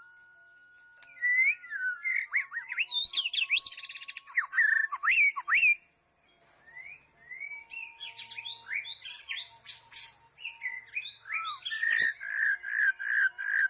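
White-rumped shama singing a loud, varied song of rich whistles, slurred glides and trills in two bouts separated by a short pause. The second bout ends with a quick run of repeated notes, about four a second.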